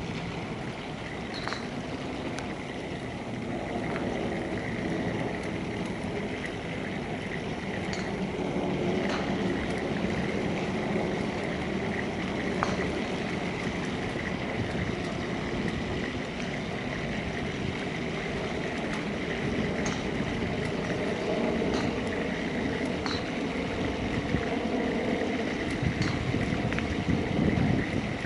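Steady outdoor background rumble with a few short, high chirps scattered through it.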